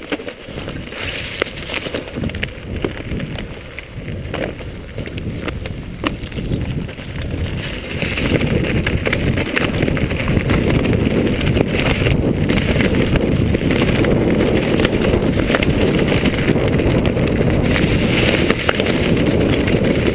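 Wind buffeting a rider-worn camera's microphone during a fast mountain-bike descent on a dirt trail, mixed with tyre rumble and short rattles from the bike over bumps. The noise grows louder about eight seconds in as speed picks up.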